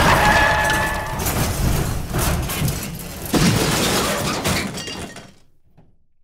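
Car crash: glass shattering and metal crashing, with debris clattering. A second hard hit comes about three seconds in, and the noise dies away after about five seconds.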